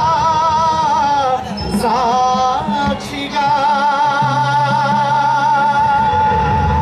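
Male singer singing a Telugu tribute song to the movement's martyrs, amplified through a handheld microphone. Short wavering phrases give way, about three and a half seconds in, to one long held note.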